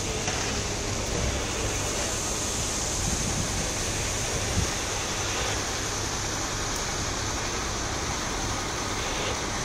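Crawler crane's diesel engine running with a steady low hum under an even rush of wind and hiss, with one light knock about halfway through.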